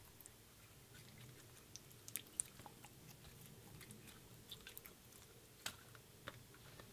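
Pink slime being squeezed and kneaded by hand: faint, scattered sticky clicks and small wet pops. The loudest come a little after two seconds in and just before six seconds.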